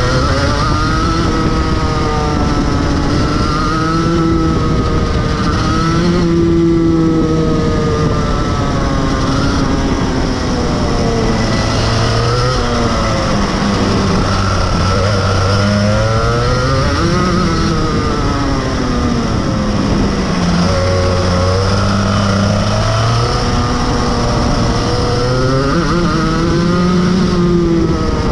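Rotax Max Evo 125 two-stroke kart engine heard onboard, revving up along the straights and dropping in pitch as the driver lifts for the corners, rising and falling many times over a lap.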